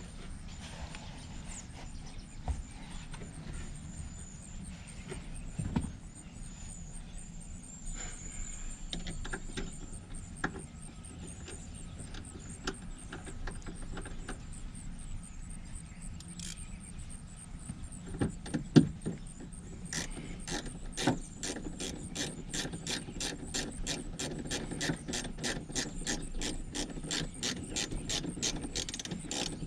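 Scattered handling clicks and knocks, with one loud thump a little before the ratchet starts. Then, from about 20 seconds in, a hand ratchet clicks steadily at about three clicks a second as it turns a fastener.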